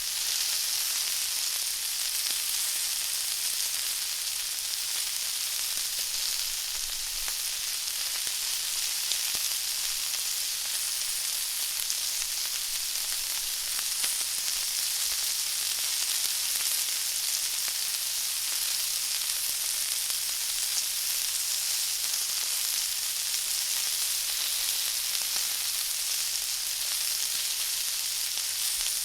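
Food frying in hot oil: a steady sizzle with fine crackles that never lets up.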